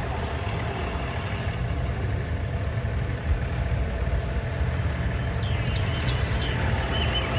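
A farm tractor's engine running steadily with a low, even rumble. Faint high-pitched calls are heard over it near the end.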